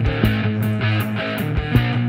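Rock band playing an instrumental passage: guitar and bass holding chords that change every half second or so, over drums with a steady beat of cymbal hits, nearly three a second.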